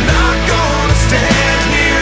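Rock song with a full band and a steady drum beat.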